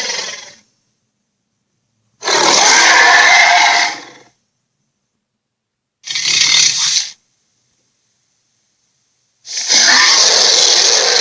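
Dragon sound effects: rough, noisy growl-like bursts of one to two seconds each, cut off into dead silence between them, with a fresh burst starting about two, six and nine and a half seconds in.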